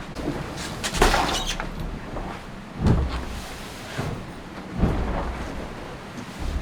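IMOCA 60 racing yacht's hull slamming into waves about every two seconds, four heavy thuds, each with a rush of water noise.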